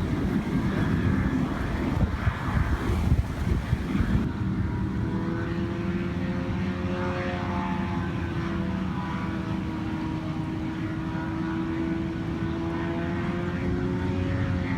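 Engine and propeller of an amphibious flex-wing microlight, a small boat hull under a hang-glider wing, droning steadily in flight, its pitch gently rising and falling. Rushing wind on the microphone covers the first few seconds, then the engine tone comes through clearly.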